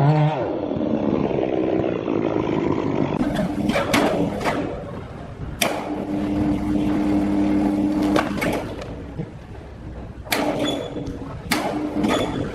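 Sawmill machinery running with a steady hum, broken by several sharp knocks and clatters of wood and metal in small groups.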